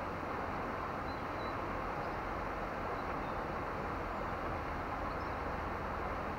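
Steady rushing of water pouring through an old river dam, an even noise that never changes, with a couple of faint high bird chirps.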